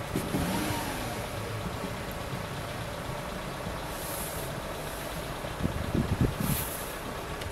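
Trucks and cars idling at a railway crossing, with a short air-brake hiss about four seconds in and another near the end.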